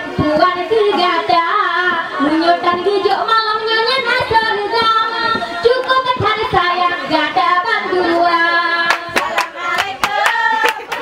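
Singing with musical accompaniment, a voice's melody carrying on throughout; about nine seconds in, rhythmic hand clapping joins in.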